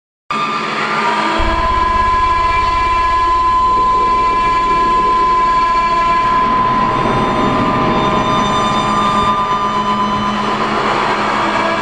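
Dark ambient noise drone: a loud, dense wall of sustained tones and hiss that cuts in abruptly, with a low pulsing rumble joining about a second later and one clear steady tone held over it.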